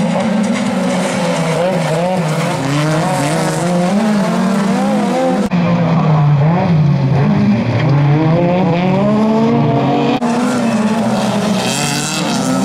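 Several autocross touring cars racing on dirt, their engines revving hard and rising and falling in pitch as they accelerate and back off.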